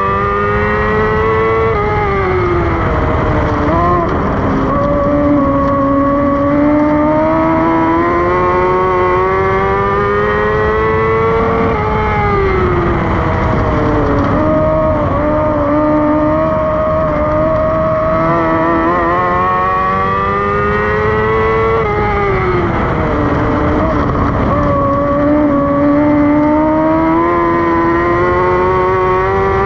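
Dwarf car's motorcycle-based engine at racing speed, heard on board. The pitch climbs along each straight and drops sharply as the driver lifts for the turns, three times about ten seconds apart.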